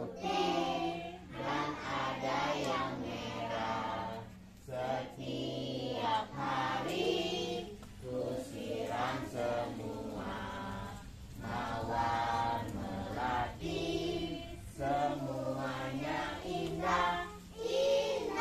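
A group of young children singing a song together, with a woman's voice among them, over low held accompaniment notes that step from pitch to pitch.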